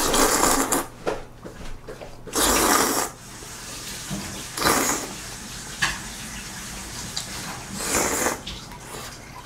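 A person slurping noodles off a plate with chopsticks: four long wet slurps a couple of seconds apart, the last near the end.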